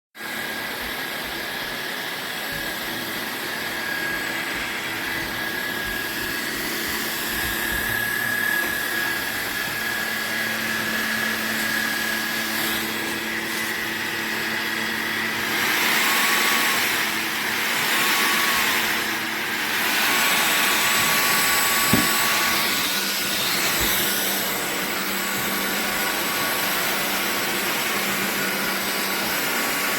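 MFJUNS cordless stick vacuum cleaner running, a steady motor-and-airflow noise with a thin high whine. About halfway through the sound grows louder and the whine bends in pitch a few times, and a single knock follows a few seconds later.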